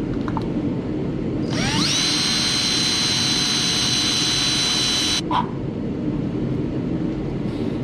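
Electric drill with a step bit spinning up with a rising whine about a second and a half in, running steadily for about three and a half seconds while boring a hole through thin plastic with no pilot hole, then stopping.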